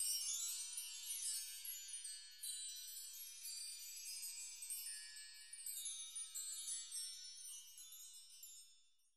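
High, bell-like chime tones, many ringing and overlapping at once, fading out near the end.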